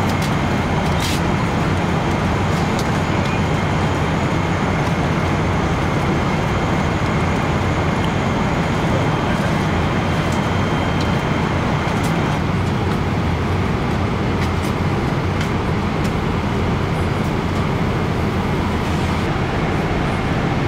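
Steady roar of the cabin noise inside a Boeing 777-300ER airliner in cruise: the constant rush of airflow and engine noise, with a few light clicks.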